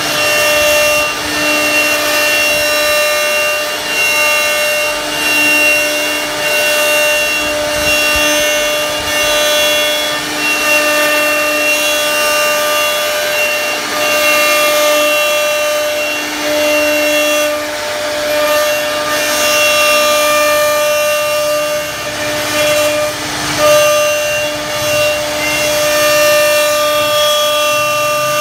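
CNC router spindle running with a steady whine while its bit carves grooves into a wooden door panel. The cutting noise swells and eases every second or two as the bit moves through the wood.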